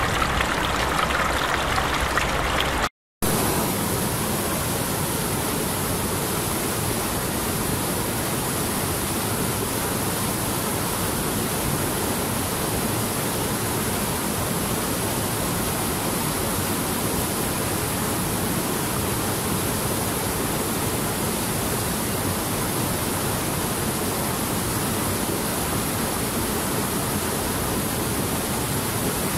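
A small stream trickling over stones, broken off about three seconds in by a moment of silence; then a steady rush of white water pouring over boulders in a mountain river.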